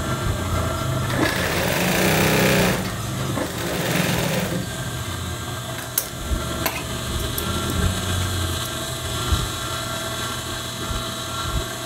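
Industrial sewing machine running a short seam for about three seconds, its motor humming steadily throughout, then a couple of sharp clicks as the threads are snipped with scissors.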